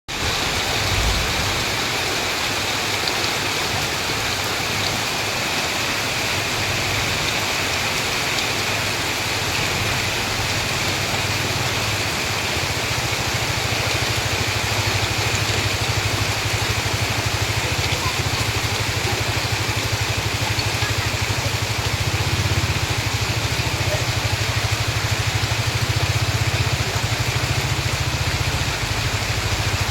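Rain falling steadily, an even hiss throughout, with a low rumble underneath that grows louder in the second half.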